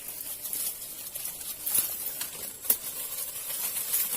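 Outdoor ambience of steady high-pitched insect chirring, with a few sharp clicks and rustles, one near the middle and one a little before the end.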